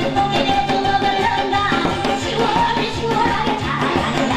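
Korean buk barrel drum beaten with a stick in a steady rhythm, over upbeat music with a sung melody.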